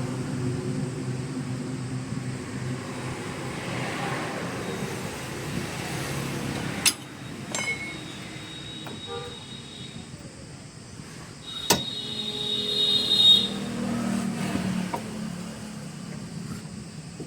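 A car engine running, fading out over the first few seconds. Two sharp clicks come about seven seconds in and again near twelve seconds, followed by a brief higher whine.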